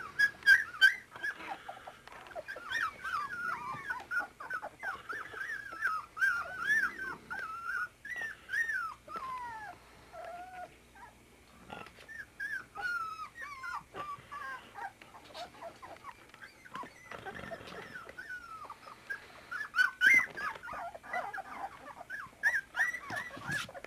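A litter of 24-day-old puppies whimpering and squealing: many short cries that rise and fall, overlapping one another, with a few sharp clicks among them.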